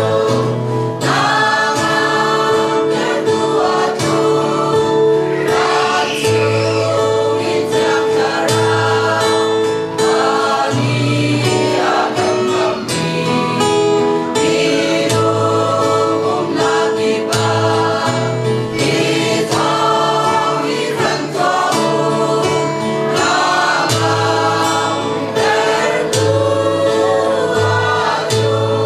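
Mixed choir of men and women singing a Christmas hymn together, phrase after phrase, over sustained instrumental bass notes.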